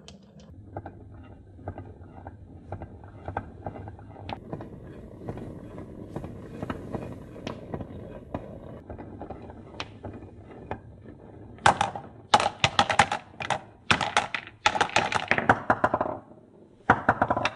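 Marbles rolling down a carved wooden serpentine groove: a steady rumble with frequent small clicks as they knock against the bends. From about twelve seconds in, a run of loud clacks as they drop one after another into a plastic toy loader bucket and strike one another, with one more short burst near the end.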